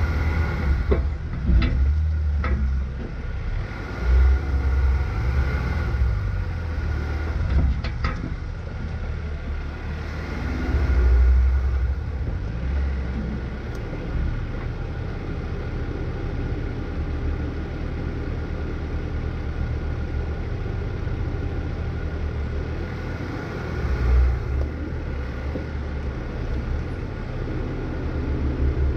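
Jeep Wrangler engine running at a slow crawl over rock, a steady low rumble. A few sharp knocks come in the first several seconds.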